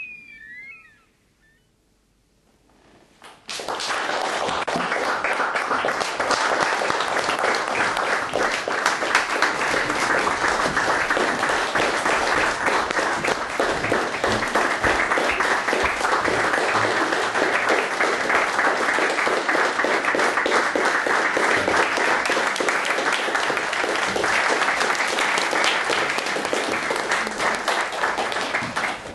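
Theatre audience applauding: after a short silence, the clapping breaks out about three and a half seconds in and keeps up at an even level.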